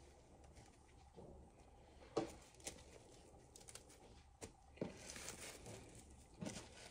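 Faint kitchen handling noises: a few light knocks and taps, with a short rustle about five seconds in.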